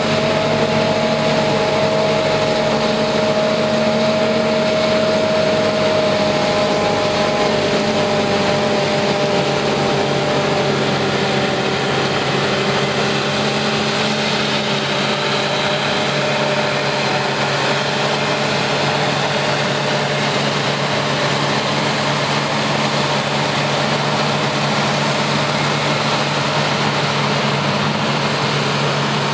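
New Holland FR9060 self-propelled forage harvester chopping corn under load and blowing silage into a truck running alongside: a steady machinery and engine drone with a dense hiss, its whine sagging slightly in pitch over the first half.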